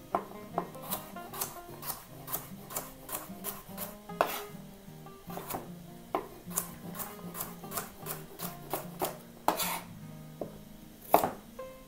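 Chef's knife slicing carrots on a wooden cutting board: a run of irregular knocks as the blade meets the board, about one or two a second, with a louder chop near the end.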